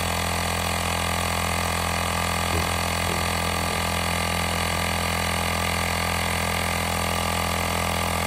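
Xiaomi Portable Electric Air Compressor 1S running steadily, its small motor-driven pump inflating a bicycle tyre as the pressure climbs toward its 45 PSI automatic cut-off.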